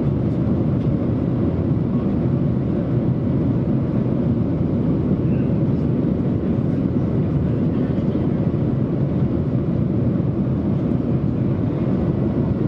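Steady roar of a Boeing 737-900ER heard inside the cabin during the climb after take-off: its CFM56-7B turbofan engines and the airflow over the fuselage make a constant, even drone.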